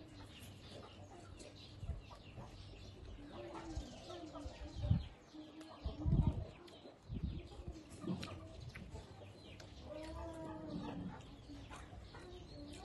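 Chickens clucking in the background, with a longer run of clucks about ten seconds in, over close-up eating sounds: chewing and crunching of food, with a few soft low thuds.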